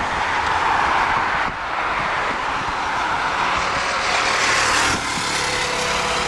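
Boeing 767's twin jet engines running at taxi power, a steady roar. A faint steady whine comes in about five seconds in.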